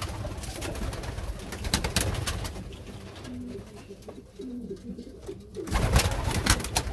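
Domestic pigeons cooing in a loft, a low wavering coo through the middle. Sharp clicks and rustles come at the start and again, loudest, about six seconds in.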